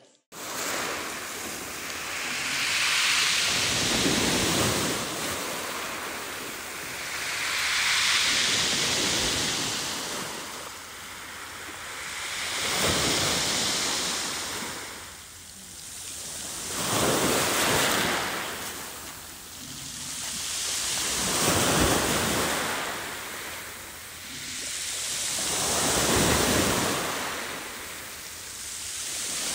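Ocean waves washing ashore, swelling and falling away about every four to five seconds.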